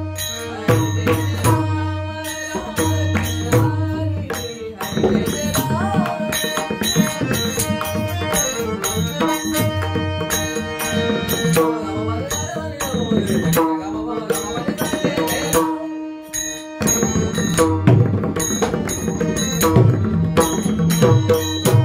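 Devotional bhajan music: pakhwaj drum strokes in a steady rhythm, with small metal hand cymbals ringing on the beat over held steady tones. The playing briefly drops out about three quarters of the way through, then picks up again.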